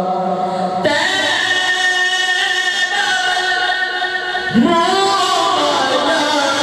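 A man singing a naat solo into a microphone, holding long notes with ornamented pitch bends. A new phrase starts about a second in, and another slides up into a high held note a little past the middle.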